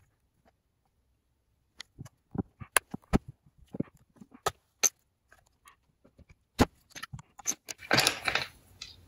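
Sharp plastic clicks and snaps as a plastic pry pick works along the snap-fit seam of a portable external hard drive's plastic case, the hidden clips still holding firm. Scattered single clicks for several seconds, then a short scraping rustle about eight seconds in.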